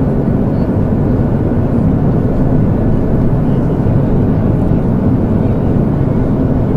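Steady, even roar of a jet airliner in cruise, strongest in the low range and unchanging throughout.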